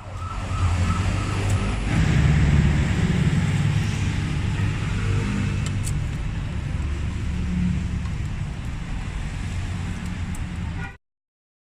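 Motor vehicle noise: a steady engine rumble with shifting low tones that cuts off suddenly about a second before the end.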